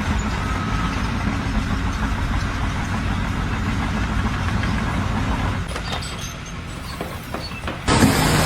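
An engine running steadily with a low rumble, fading down about six seconds in, then an abrupt cut to a louder, noisier sound near the end.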